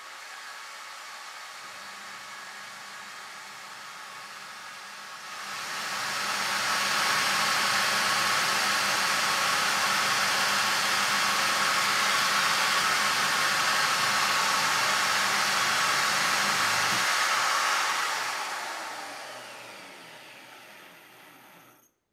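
An electric grinder with a small mounted stone spinning fast and grinding the inside of the jaws of a Pratt Burnerd 3-jaw chuck turning on a Myford ML7 lathe, to take the bell-mouthed wear out of the jaws. A steady hiss with a faint low hum that grows much louder about five seconds in, holds, then dies away over the last few seconds.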